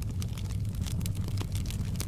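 Wood fire crackling in a fireplace: irregular sharp pops and snaps, a few each second, over a steady low rumble of the flames.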